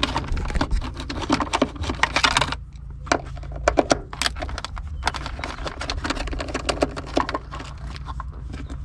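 Ratchet with a 10mm socket clicking as it backs out the console bolts: a dense run of rapid clicks for the first couple of seconds, then slower, scattered clicks.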